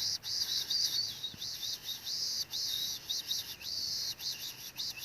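Dense, continuous high-pitched chirping from small creatures, a rapid run of short chirps with only brief breaks.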